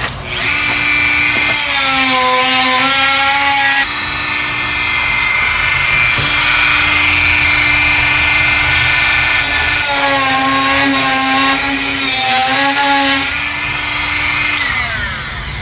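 Rotary tool with a cut-off wheel running at high speed with a steady high whine. Its pitch drops twice as the disc bites into black plastic, then it winds down near the end.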